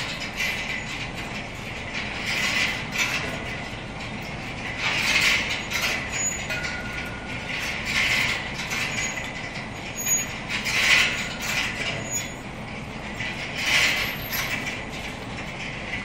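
Overhead chain conveyor of a hanging-basket frying line running, the wire baskets rattling and clanking on their hangers about every three seconds over a steady mechanical noise.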